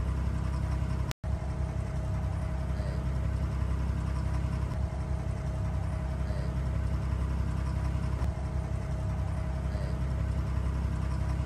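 Abra water taxi's inboard diesel engine running at a steady low drone while the boat crosses the creek. The sound cuts out for a split second about a second in.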